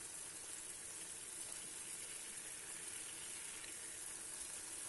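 Sliced tomatoes, previously frozen, and green peppers sizzling steadily in oil in a frying pan.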